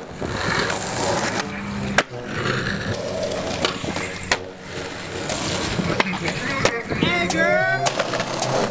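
Skateboard wheels rolling on rough asphalt, broken by several sharp clacks of the board's tail popping and the board landing. Near the end comes a brief shout.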